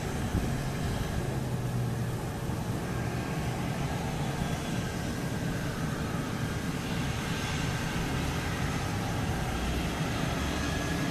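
Beechcraft King Air's twin Pratt & Whitney PT6A turboprops running at taxi power: a steady propeller drone mixed with turbine whine, a thin high whine growing clearer in the second half.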